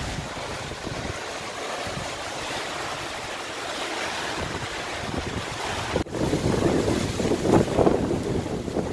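Gusty wind over choppy lake water, with small waves washing onto a sandy shore and wind buffeting the microphone. After a brief break about six seconds in, the wind buffeting gets heavier.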